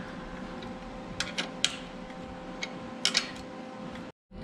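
Wrench turning a nut welded onto a broken steel bolt in an aluminum engine block, giving a few sharp metallic clicks, a couple about a second in and a couple about three seconds in, as the bolt backs out. A faint steady hum runs underneath.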